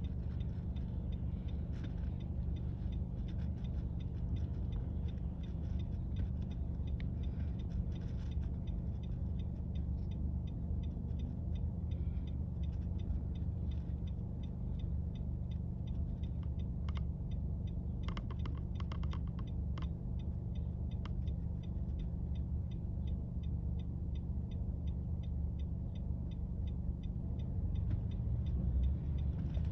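City street background: a steady low hum with faint, evenly spaced ticking over it and a few short clicks about two-thirds of the way through.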